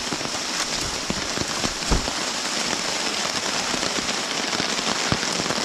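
Heavy rain falling on a tarp and the surrounding bush, a dense steady hiss peppered with sharp drop strikes, the loudest about two seconds in.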